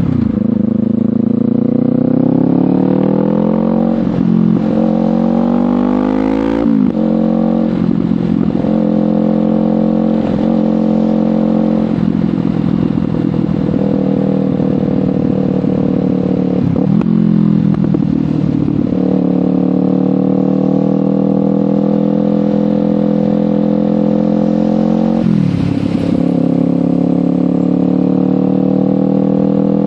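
Kawasaki Ninja 500 parallel-twin engine through a LeoVince GP Corsa Evo slip-on exhaust, under way: the engine note climbs and drops sharply at upshifts about 4 and 7 seconds in, then cruises with brief dips as the throttle is rolled off, rises slowly again and drops at one more shift near the end.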